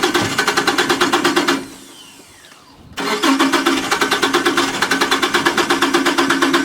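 Opel Corsa B being cranked by its starter motor, the engine turning over in an even rhythmic chug of about six beats a second without firing: a car that cranks but won't start. The cranking stops about a second and a half in and starts again about a second and a half later.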